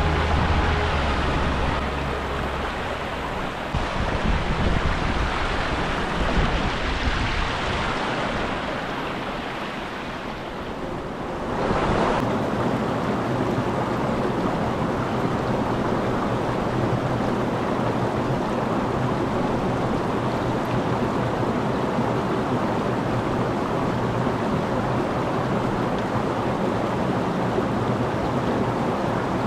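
Waterfall water rushing steadily, with an abrupt change to a louder, fuller rush about twelve seconds in.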